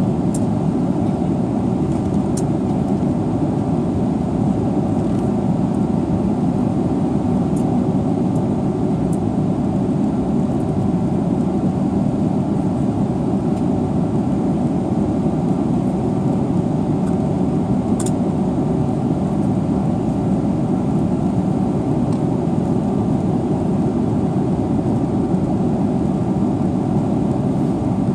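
Steady cabin noise inside a Boeing 777-300ER airliner: a constant low rumble of the engines and air systems, with a couple of faint ticks.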